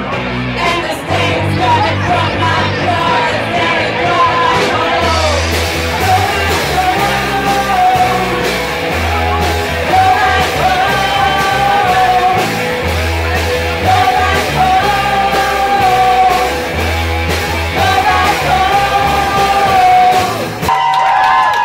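Live band playing a song: sung vocal line over bass notes and drum hits. The music stops abruptly about a second before the end.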